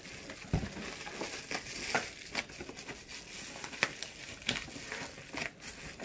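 Plastic packaging crinkling as it is unwrapped and handled, with many small irregular crackles.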